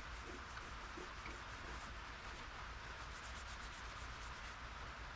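Faint hand wet sanding of Yamaha Blaster ATV plastic with fine-grit wet sandpaper, a steady rubbing hiss with a run of quicker strokes around the middle.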